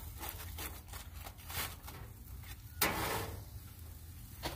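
Metal tongs clicking and scraping against the grill grate of a hot dog cart while food is turned, in a run of short knocks, with one sharper clack about three seconds in.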